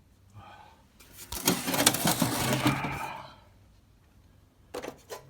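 Clattering and scraping of hard objects being handled, about two seconds long, starting about a second in, followed by a few sharp clicks near the end.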